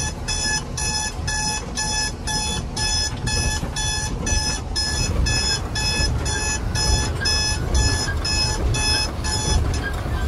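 Electronic warning buzzer in a Tata Prima truck cab, beeping rapidly at about two and a half beeps a second over low engine and road rumble. The beeping stops near the end.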